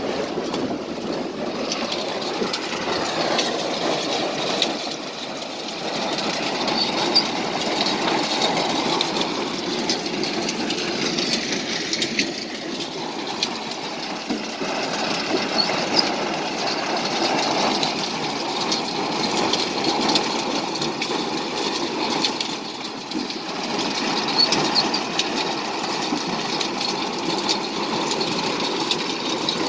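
An apple harvester's conveyor running steadily and tipping juice apples into a trailer: a continuous mechanical clatter with many small knocks of apples tumbling onto the heap, over a running engine.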